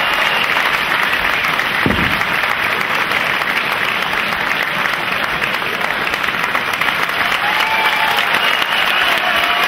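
Arena crowd applauding steadily as the winner of the fight is announced, with a short low thump about two seconds in.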